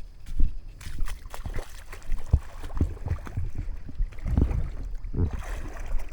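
Creek water sloshing and gurgling, with a run of soft, irregular low thumps.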